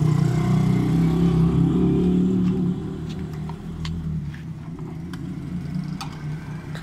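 Small motorcycle engine running, a little faster at first, then falling back to a lower idle about three seconds in. A few light metallic clicks from a hand tool come over it as a horn bracket is fitted.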